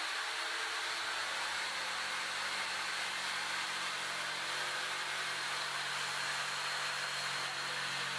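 Electric jigsaw running steadily as its blade cuts a curve through 9 mm MDF board.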